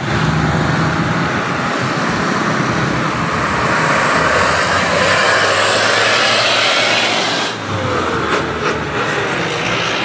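Road traffic going close past: cars, motorcycles and a truck, a steady rushing of engines and tyres that swells toward the middle and dips briefly past halfway.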